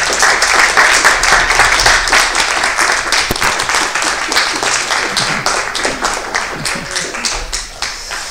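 Audience applauding, the clapping fading gradually toward the end.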